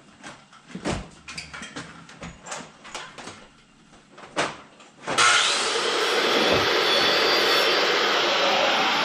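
A few light knocks and clicks, then about five seconds in a loud, steady rush of air starts suddenly and keeps going.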